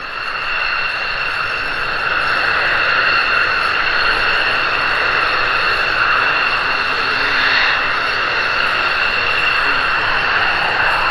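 F-16 fighter jet's turbofan engine running at taxi power: a steady, loud jet whine with several high tones over a rushing noise, swelling over the first second, then holding even.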